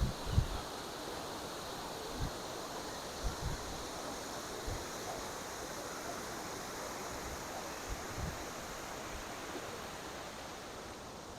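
Ess-na-Crub waterfall in high flow after heavy rain: a steady, even rush of falling water. Wind gusts off the falls hit the microphone in a few short low thumps, most of them in the first five seconds.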